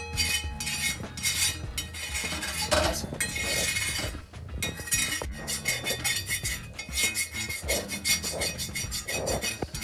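A steel kitchen knife scraping across a hot cast-iron tawa in quick repeated strokes, metal grating on metal as it lifts off the black crust of burnt-on flour that has built up on the griddle.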